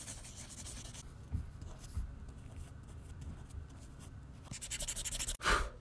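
Coloured pencil and pen scratching on paper while drawing, in many short strokes that get quicker and louder near the end.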